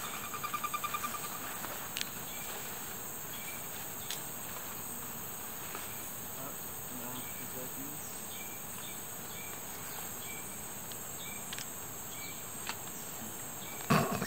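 Steady high-pitched buzzing of a rainforest insect chorus. A rapid pulsed trill sounds for about the first second, and a short loud knock comes near the end.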